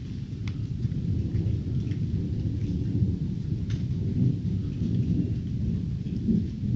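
Thunder rolling as a continuous low rumble that swells a little after the first second, with scattered raindrop ticks.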